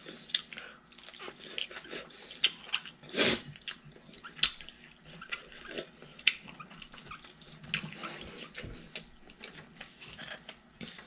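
Close-up eating sounds: wet chewing and lip-smacking, a run of short moist clicks, with one louder wet smack about three seconds in.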